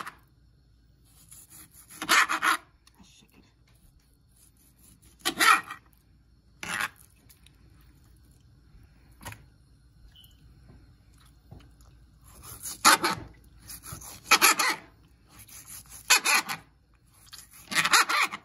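Kitchen knife sawing through raw chicken breast and scraping on a glass cutting board: short scraping strokes in bursts every few seconds, with quiet pauses between.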